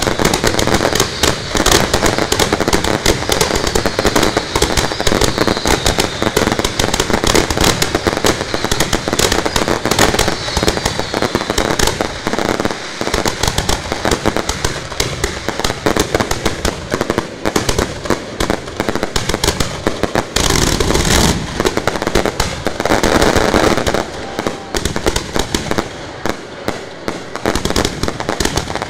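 Fireworks fired from ground-level launch racks a few metres away: a dense, continuous barrage of launch bangs and crackling, with a heavier burst about twenty seconds in.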